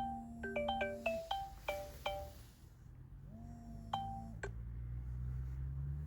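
Electronic chime melody: a rising swoop, then a quick run of bell-like, marimba-like notes, and again the swoop and a few notes about three seconds in. A low rumble swells in the second half.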